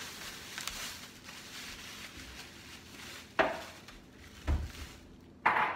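Handling noises while tilapia fillets are unwrapped from butcher paper and a plastic bag: a sharp knock about three and a half seconds in, a dull thump a second later, and a brief rustle near the end, over a faint hiss.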